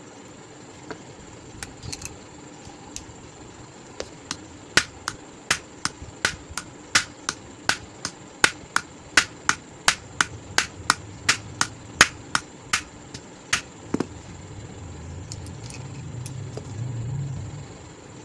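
Rapid series of sharp taps, about three a second for some ten seconds, as a ball bearing is worked onto a stand fan rotor's shaft. Near the end, a low rumble swells for a few seconds and stops.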